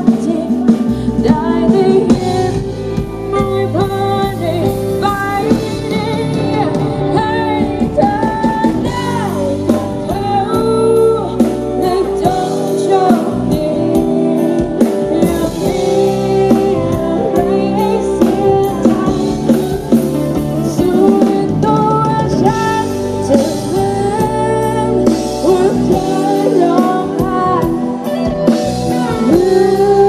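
A woman singing live with a rock band of electric guitars and a drum kit.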